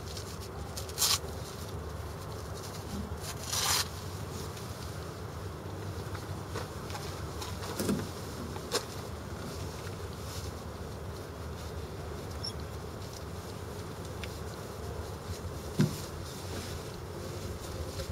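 Steady wind rumble on a hang-glider-mounted camera's microphone, with a few short rustles and clicks from the pilot's harness gear and boots scuffing on gravel.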